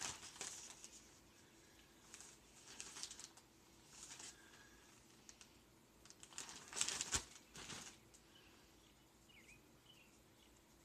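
Plastic zip-top bag crinkling in several short bursts as it is opened and handled, loudest about seven seconds in. Faint bird chirps come in near the end.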